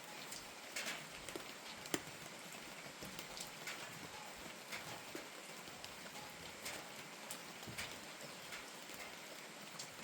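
Steady rain falling, with irregular drops tapping sharply on a hard surface; one louder tap about two seconds in.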